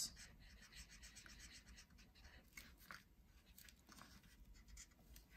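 Faint scratching of a felt-tip marker coloring on paper in many short, quick strokes.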